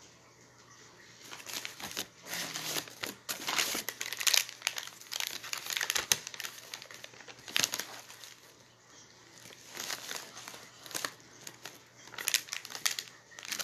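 Crinkling of parcel packaging being handled and opened, in irregular bursts with a short lull past the middle.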